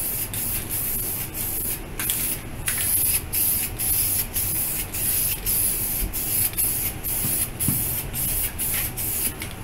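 Spray paint hissing onto a plastic car bumper as the second coat of base coat is laid on. The high hiss is broken by short gaps about two or three times a second.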